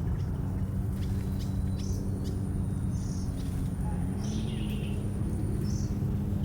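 Small bird giving short, high chirps about once a second over a steady low rumble with a constant hum.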